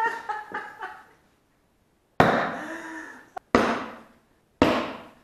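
Small hand-forged tomahawk thrown into a wooden target: three sharp impacts about a second apart, each ringing briefly and dying away.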